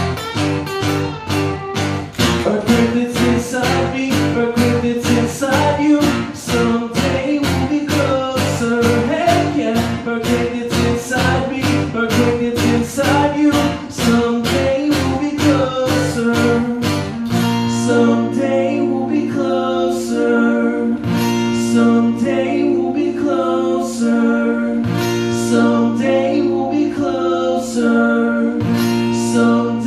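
Instrumental section of a guitar-led song: acoustic guitar strummed in a steady, even rhythm. About seventeen seconds in it changes to held chords over a sustained low bass note, with slower picked notes.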